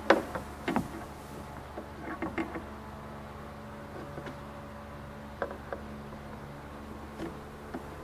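Light clicks and taps of needle-nose pliers and a plastic trim panel as a push-pin clip's tabs are squeezed behind the panel, the sharpest right at the start, a cluster around two seconds and a few single ones later. A steady hum runs underneath.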